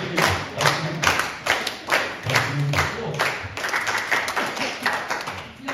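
Small audience applauding, the claps falling together into a steady beat of about three a second. The sound cuts off suddenly near the end.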